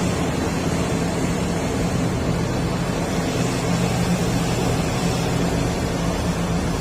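Steady low engine rumble of a vehicle, running evenly without revving.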